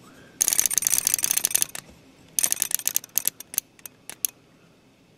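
Mechanical flip clock being advanced by hand with its setting dial, its number leaves flipping over in quick succession: a fast run of clicks about half a second in, another around the three-second mark, then a few separate clicks that slow and stop.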